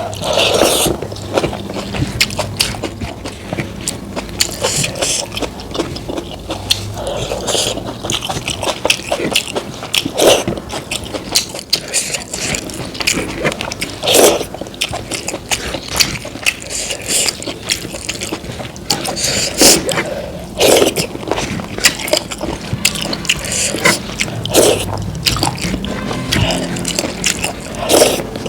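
A person eating close to the microphone: wet chewing and mouth smacks with sharp crunches and clicks at irregular intervals, a louder burst every few seconds.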